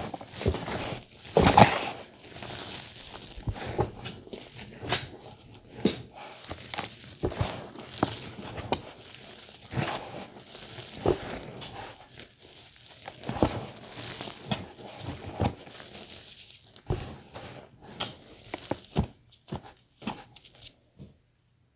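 Gloved hands pressing, squeezing and tossing a heap of powdered gym chalk in a tub: irregular soft crunches and dull thuds that thin out near the end.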